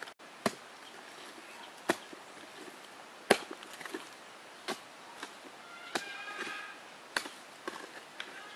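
Sharp single knocks, one about every one and a half seconds, over quiet outdoor background. Faint whistling tones join in about six seconds in.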